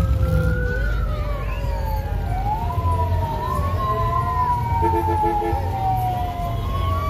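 Sirens wailing, two slow rising-and-falling tones overlapping and crossing each other, over a steady low rumble.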